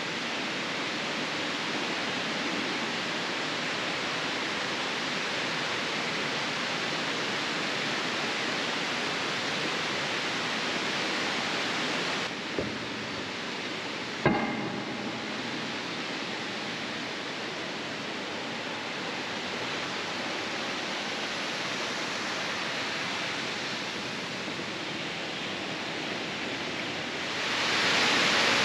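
Steady rush of flowing water, an even hiss that swells louder near the end. About halfway through, a small knock and then a sharper knock with a brief ring cut through it.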